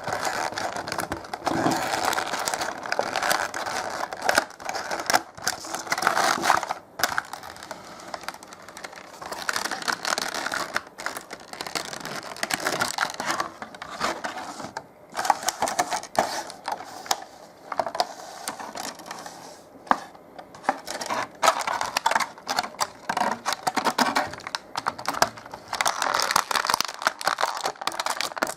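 Toy packaging being handled and opened: irregular rustling and crinkling of plastic and cardboard, broken by many small clicks and knocks.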